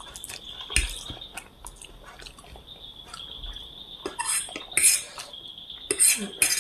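Cutlery clinking and scraping against a plate while chow mein noodles are eaten: scattered sharp clicks, busier about four to five seconds in and again near the end.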